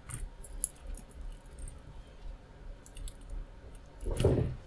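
Small scattered clicks and light rattles of metal crocodile clips and test leads being handled and clipped onto resistor leads, with a louder, longer rustle about four seconds in.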